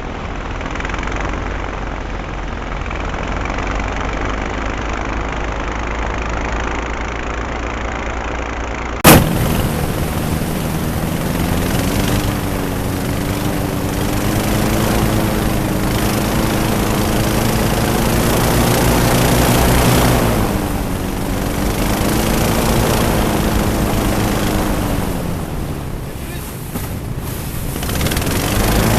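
Twin-engine airboat's engines and propellers running under way, with heavy wind noise. There is a single sharp click about nine seconds in. After it the engine note rises and falls as the throttle changes.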